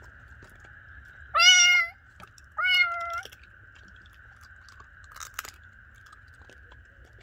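Kitten meowing twice, a rising call then a shorter level one about a second apart.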